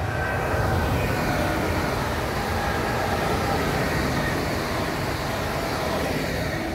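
Two coupled EN78 electric multiple units running past: wheels on rail give a steady noise with a faint higher whine over it, easing off near the end as the last car goes by.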